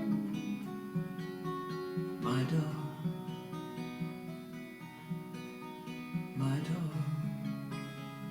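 Acoustic guitar strumming chords in an instrumental passage without singing, the chords ringing on with fresh strums about two seconds in and again past six seconds.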